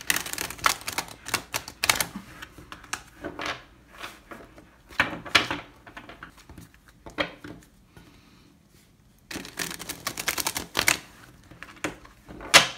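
A tarot deck being shuffled by hand, the cards clicking and slapping together in quick bursts. There is a lull a little past the middle and a sharp snap near the end.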